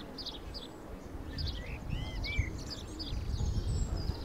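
Small birds chirping and twittering in short, scattered calls, over a low rumble of wind on the microphone that grows stronger in the second half.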